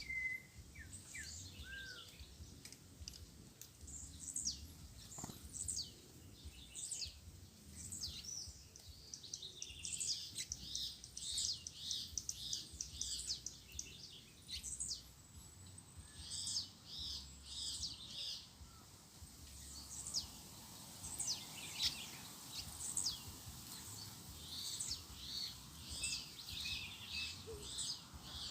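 Many small birds chirping and calling over one another in a dense, continuous chatter of short high notes, with a few lower whistled glides at the very start.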